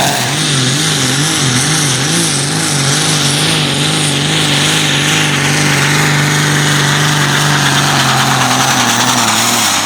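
Tractor pulling competition engine running hard. Its pitch wavers up and down at first, then holds steady at high revs, and drops away near the end.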